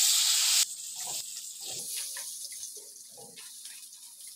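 Spice paste frying loudly in hot oil in a wok, a steady hiss that drops away suddenly about half a second in. What follows is a much fainter sizzle with a few soft, irregular knocks as the cut long beans sit in the pan.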